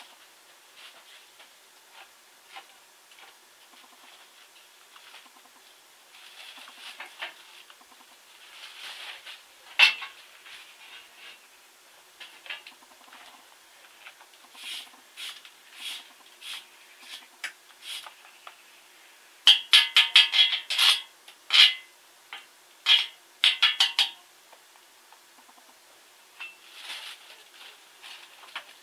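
Metal tools and parts being handled by hand: scattered clinks and rattles, then a quick run of loud, ringing metal clanks about twenty seconds in.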